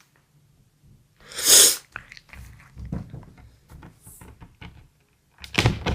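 A cat eating: it sneezes loudly once about a second and a half in, chews with scattered crunching clicks, then lets out another sneeze-like burst near the end.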